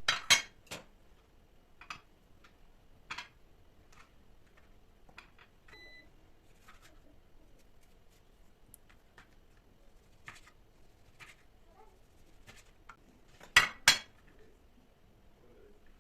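Kitchen clatter: dishes and utensils being handled and set down, with scattered sharp clinks. The loudest clatter comes just after the start and as two knocks near the end, and a short electronic beep sounds about six seconds in.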